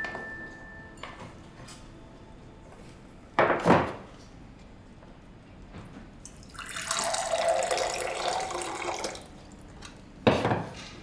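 Liquid poured from a stainless steel vacuum flask into a mug for about three seconds. The flask and mug knock twice in quick succession a few seconds before the pour, and once more near the end as they are handled.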